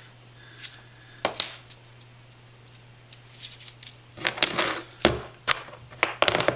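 Small metal hardware and a hex driver clicking and clinking as they are handled on a workbench: a few separate sharp clicks in the first second and a half, then a quick run of clicks from about four seconds in.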